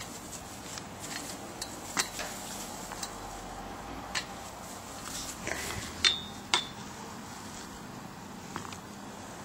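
Scattered sharp metallic clicks and clinks over a faint background. The loudest are a pair about half a second apart some six seconds in, each with a short ring.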